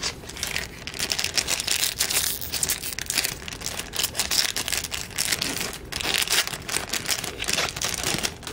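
Foil trading-card pack wrapper being torn open and crinkled by hand, a dense run of crackles that goes on for several seconds.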